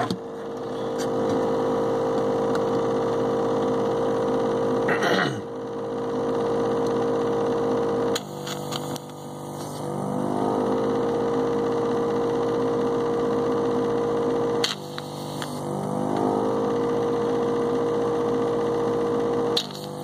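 Handheld vacuum desoldering gun's electric pump motor running with a steady hum while it sucks solder from the leads of an old B+ filter capacitor. Three times it cuts out with a falling pitch, then spins back up.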